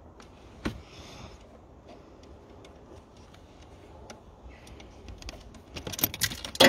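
Small metal clicks and ticks of a socket and extension turning the terminal nut on an alternator's main output stud. Near the end comes a quick, loud clatter of metallic clicks as the small nut falls and bounces on the engine.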